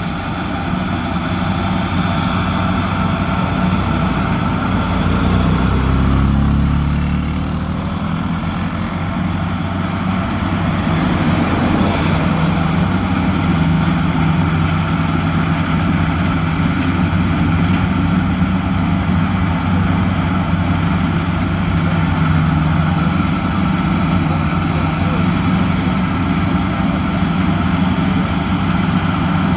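Crown Sumo rice combine harvester running steadily as it drives and cuts through the paddy, its engine note shifting between about five and eight seconds in before settling again.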